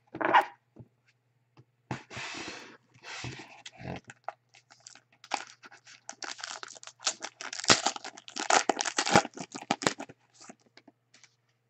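Shiny trading-card pack wrappers being torn open and crinkled, with cards handled and shuffled between the hands. Rustling bursts come at first, then a dense stretch of crackling from about five to ten seconds in, loudest around eight to nine seconds.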